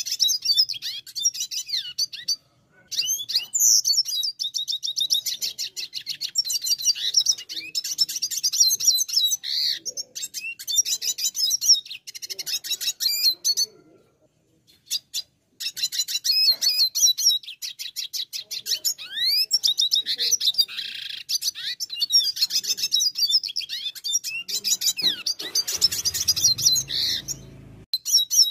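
Red siskin singing: long phrases of rapid, high trills and chirps, broken by short pauses about 2.5 s in and again about 14 s in.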